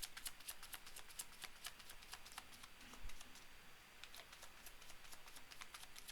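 Tarot deck being shuffled and handled: a faint, irregular run of quick card clicks and snaps, thicker in the first half and thinning out later.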